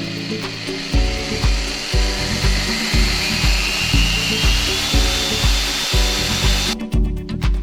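Background music with a steady bass beat, over the noisy whine of a magnetic drilling machine cutting metal, its pitch slowly rising. The drilling stops abruptly near the end while the music plays on.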